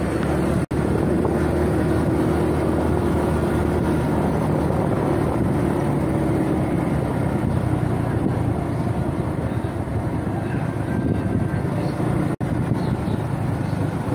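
Steady engine and road noise from a vehicle driving slowly along a town street. The sound briefly cuts out twice, about a second in and near the end.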